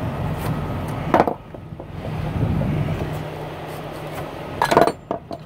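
Diesel truck engine idling with a steady low hum, broken by a sharp knock about a second in and a quick couple of knocks near the end.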